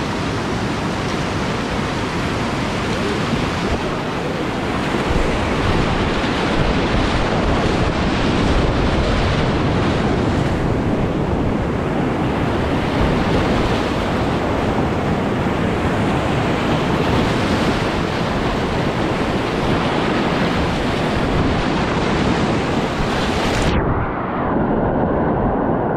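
Whitewater rapids rushing and splashing around a kayak, heard up close from a boat-mounted action camera with water buffeting the microphone. Near the end the sound turns suddenly muffled as the bow drives into a breaking wave and water washes over the camera.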